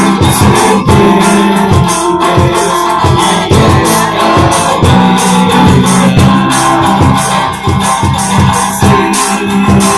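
Live band playing an instrumental passage: strummed acoustic guitar, mandolin and electric guitar over drums keeping a fast, steady beat.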